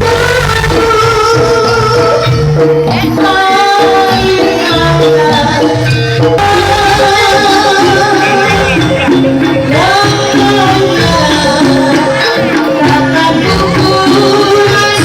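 Live jaranan (kuda lumping) ensemble music playing loudly: a melody moving in steps over steady percussion, the melody sliding upward about ten seconds in.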